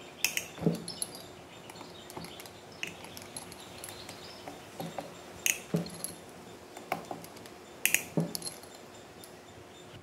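Hand tools and small metal parts clicking, clinking and knocking against the aluminium crankcase of a Honda Dio 50cc two-stroke scooter engine during disassembly, in irregular light taps with a few sharper knocks in pairs.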